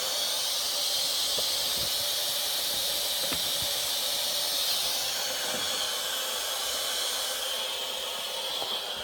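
Steady hiss of water rushing out through a gas water heater's drain as the tank is flushed of sediment and rust.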